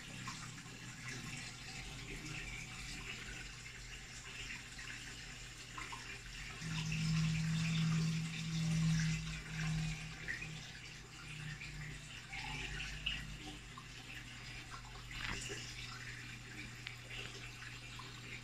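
Aquarium submersible pump and filter running: water splashes and trickles steadily over a low electric hum. The hum grows louder for a few seconds, about seven seconds in.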